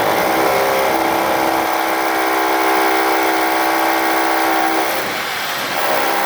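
Electric power tool motor running steadily with a constant whine over a hiss; it slackens briefly about five seconds in and then picks up again.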